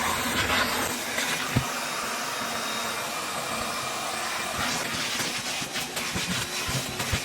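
Vacuum cleaner running steadily: an even rushing hiss with a faint high whine, with scattered small clicks in the second half as it picks up debris from the trunk.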